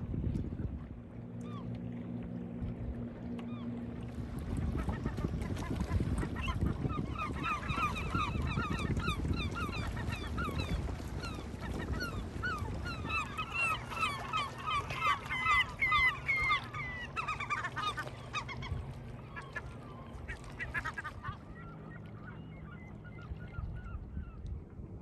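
A colony of gulls calling: many short, overlapping squawks that build from about six seconds in, are loudest in the middle, and fade out after about twenty seconds.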